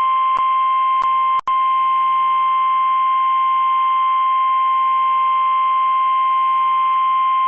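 NOAA Weather Radio warning alarm tone: a single steady, high-pitched 1050 Hz tone received over a weather radio, cutting out briefly once about a second and a half in. The tone signals that an urgent warning message, here a severe thunderstorm warning, is about to be read.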